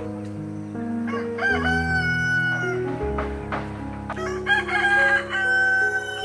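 A rooster crowing twice, each crow a few quick rising notes ending on one long held note, over background music.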